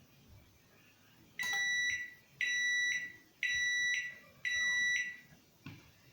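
LG microwave oven sounding four even, high-pitched beeps about a second apart: its end-of-cooking signal as the one-minute countdown runs out.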